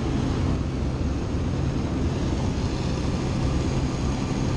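Small propeller plane's engine and propeller in flight, a steady drone with a low hum and rushing air noise, heard inside the cabin.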